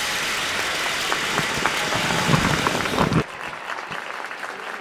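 Crowd applauding in dense clapping, which drops off abruptly about three seconds in to a thinner patter of claps.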